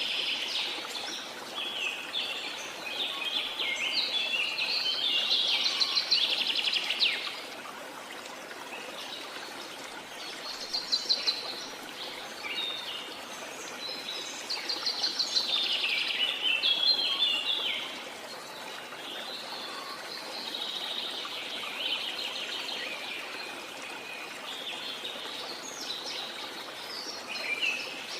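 Songbirds singing in trilled, chirping phrases of a few seconds each, with short pauses between, over the steady rush of a jungle waterfall.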